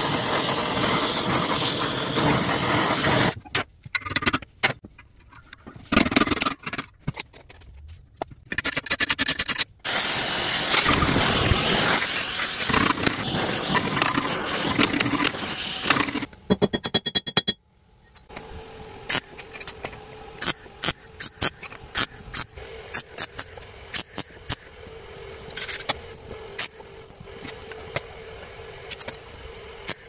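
Oxy-acetylene torch flame hissing steadily while it heats steel bar clamped in a bench vise, in two long stretches broken by choppy pauses. Near the end the hiss gives way to a run of sharp clicks and taps over a faint steady hum.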